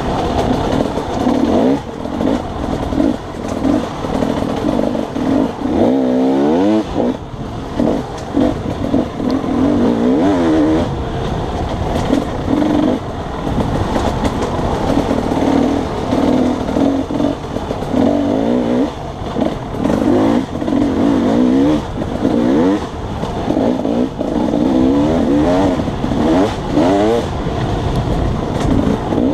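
Dirt bike engine being ridden hard, revving up and dropping back over and over as the rider works the throttle and shifts gears.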